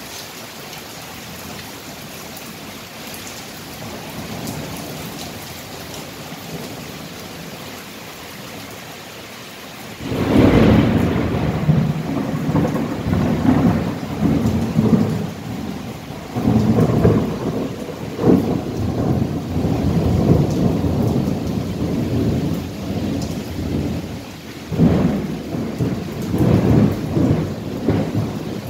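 Steady rain, then about ten seconds in a sudden thunderclap that rolls on as a long, low rumble, swelling and fading several times.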